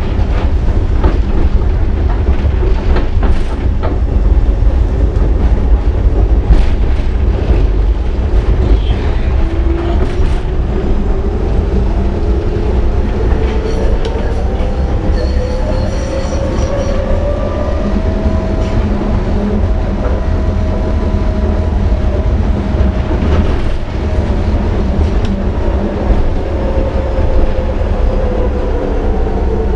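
Budapest ICS tram running, heard from inside the passenger car: a steady low rumble with rattles and clicks from the wheels over the track. About a third of the way in, a motor whine rises in pitch as the tram picks up speed, then slowly falls away.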